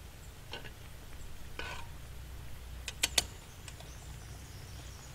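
Wooden spoon stirring sauce in a pan on a gas camp stove: a few soft scraping strokes, then a quick cluster of sharp knocks about three seconds in, over a steady low rumble.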